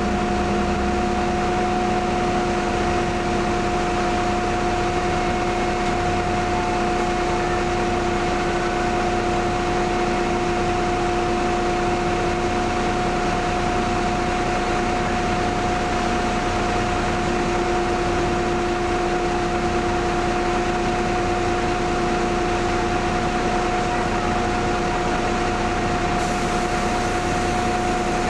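Steady running noise inside a standing Karosa B961E articulated city bus, its engine idling, with two steady whining tones, one an octave above the other, over an even hum.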